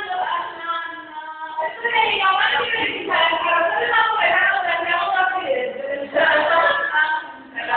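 Several voices singing or chanting together in long held notes, with a brief pause about six seconds in.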